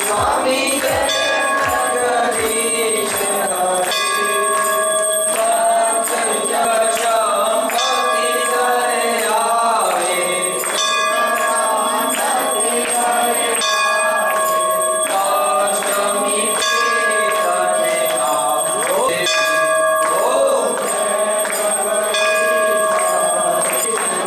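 Hindu temple hand bell rung steadily through a devotional hymn, its ringing tones held throughout, with voices singing over it.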